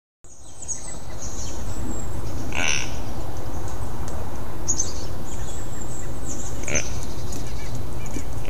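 Outdoor ambience fading in: birds chirping high and thin, with two short calls about three and seven seconds in, over a steady low rumble.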